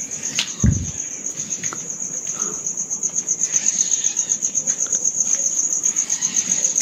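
Crickets chirping in a steady, rapid, high-pitched pulsing trill. A single dull thump sounds about half a second in.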